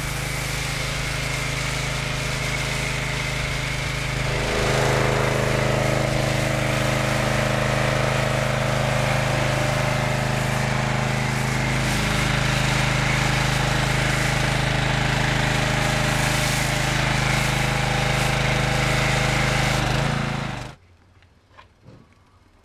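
Pressure washer running steadily with the hiss of a foam cannon spraying. It gets louder and shifts in pitch about four seconds in, then cuts off suddenly near the end.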